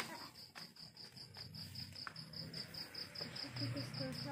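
A cricket chirping in a steady, rapid run of even, high-pitched pulses, with a few faint clicks.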